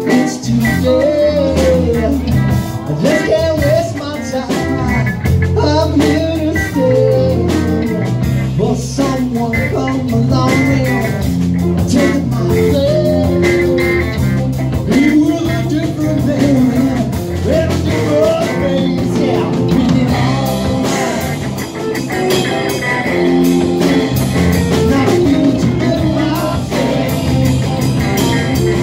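Live rock band playing a song: a man singing lead over electric guitars and bass guitar.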